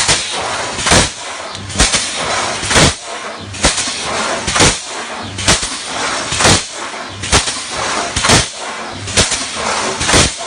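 Steel truss welding machine running in a regular cycle: a sharp bang about once a second over a steady mechanical hiss.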